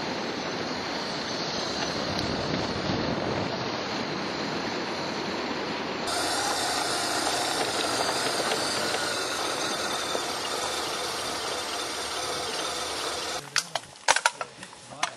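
Adventure motorcycle being ridden along a dirt bush trail, heard from a camera on the bike as a dense rush of wind, engine and tyre noise. The sound changes abruptly about six seconds in, and near the end it drops away to quieter, scattered sharp clicks and knocks.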